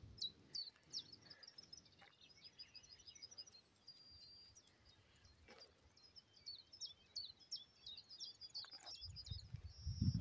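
Faint birdsong: a steady stream of short, high chirps and trills from small songbirds, with a few soft clicks and a low rumble near the end.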